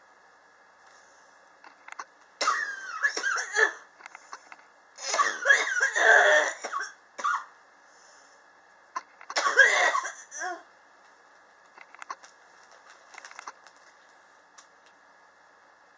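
A person coughing in three loud bouts a few seconds apart, then a few weaker coughs near the end; a chronic cough that has lasted for years.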